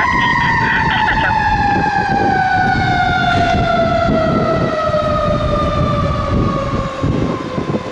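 Federal Q2B mechanical siren on a fire engine winding down, its single wail falling slowly and steadily in pitch as the rotor coasts, over low traffic rumble.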